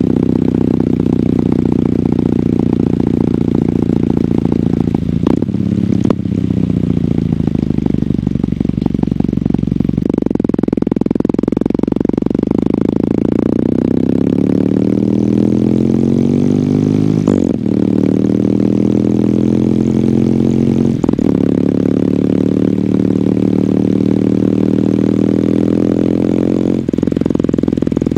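A 2022 Kawasaki W800's air-cooled parallel-twin engine running through its stock exhaust while riding. The revs drop away about five seconds in, then climb steadily, with short breaks and drops in pitch at upshifts roughly two-thirds of the way through, shortly after, and again near the end.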